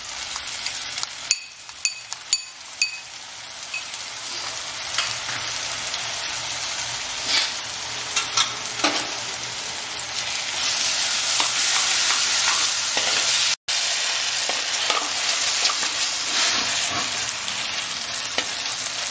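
Chopped tomatoes frying with browned onions in a hammered metal kadai: a steady sizzle that grows louder about halfway through, while a metal spoon stirs and scrapes the pan. A few ringing metal clinks come near the start.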